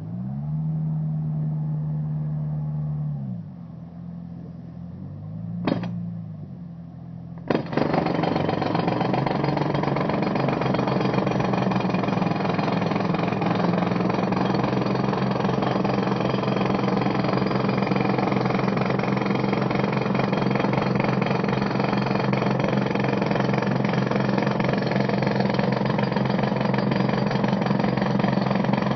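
An engine runs up and falls back twice, then about seven and a half seconds in a jackhammer starts up and hammers continuously with rapid blows, driving a pile.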